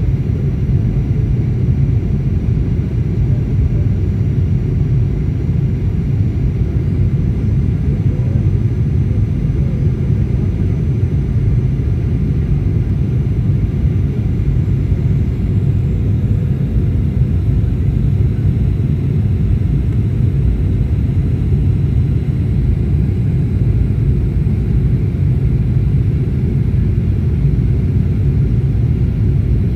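Airliner cabin noise during the descent to landing: the steady low rumble of the engines and airflow heard from inside the passenger cabin.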